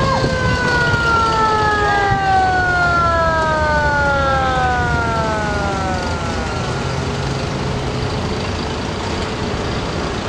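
Mechanical sirens on antique fire engines winding down, their pitch falling slowly over about six seconds; a second siren winds up briefly about two seconds in, then falls away as well. Truck engines rumble low underneath.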